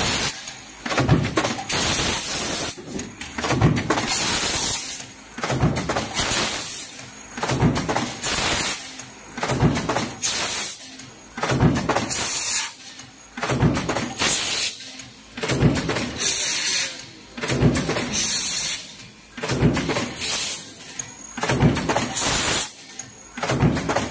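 Mechanical punch press cycling a progressive die on sheet-metal strip, one stroke about every 1.2 seconds, each stroke a loud surge of clatter. A steady high hiss runs underneath.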